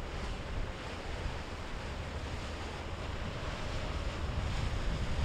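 Wind buffeting the microphone over the wash of waves, a patchy low rumble with a steady hiss above it, growing slightly louder toward the end.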